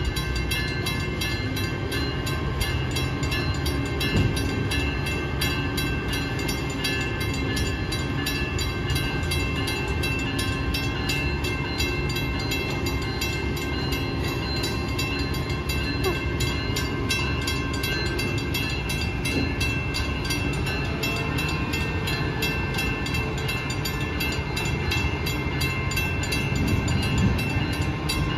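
Freight cars of a train rolling steadily through a grade crossing, a continuous low rumble of wheels on rail, with the crossing's warning bell ringing in fast, even strokes over it.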